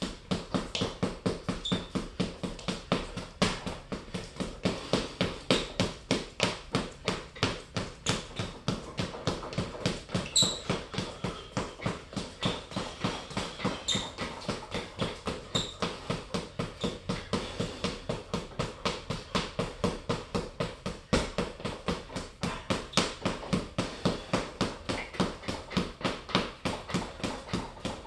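Gloved punches landing on a hanging Everlast heavy bag in a fast, steady stream, about three to four hits a second.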